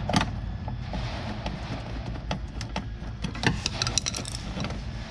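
Stiff hot-tub supply wire being worked into a spa pack's terminal block by hand: scattered small clicks and scrapes, busiest a little past the middle, over a steady low hum.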